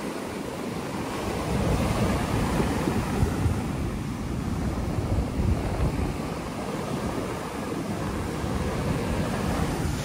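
Ocean surf breaking and washing up a sandy beach in a continuous rush, with wind buffeting the microphone.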